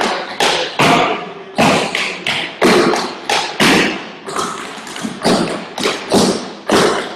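Tap shoes striking wooden tap boards as several dancers do a step together: sharp taps, about two a second in an even rhythm.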